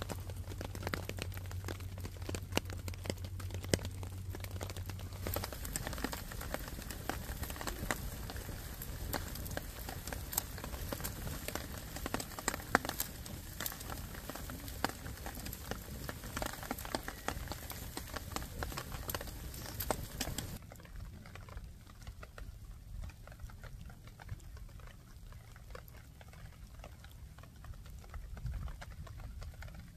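Rain pattering, a dense run of small drop clicks, which drops suddenly to a lighter patter about two-thirds of the way through.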